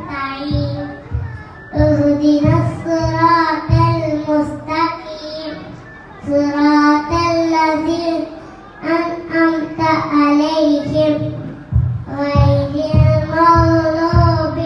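A young boy singing solo into a microphone, holding long notes in phrases of a few seconds with short breaks for breath between them.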